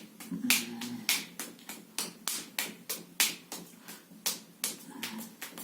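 Rapid, even slapping of a hand striking the arm in percussive self-massage, about four strikes a second.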